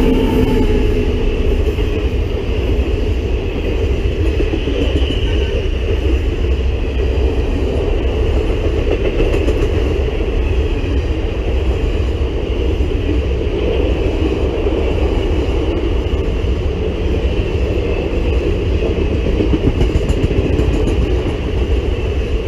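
Indian Railways passenger train passing close by behind a WAP-7 electric locomotive: a steady, loud rumble and rail noise from the coaches rolling past, with some wheel clatter. The locomotive's horn dies away in about the first second.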